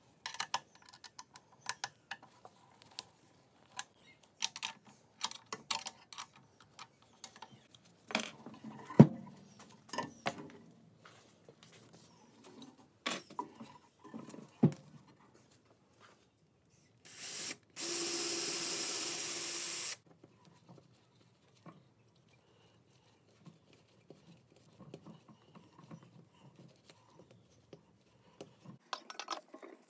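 Workshop handling: scattered clicks and metal knocks as an Allen key and a bench grinder are handled, with one loud knock about nine seconds in. A little past halfway a power drill runs steadily for about three seconds, then faint scrapes and clicks as a screw hook is turned into the underside of a wooden bench.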